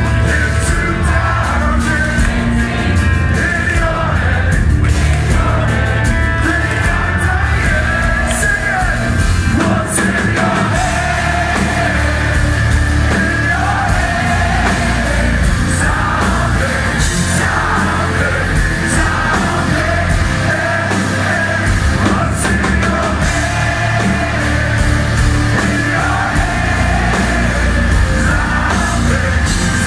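A live heavy rock band playing full volume: distorted electric guitars, bass and drums under a singer's voice, heard from within the crowd.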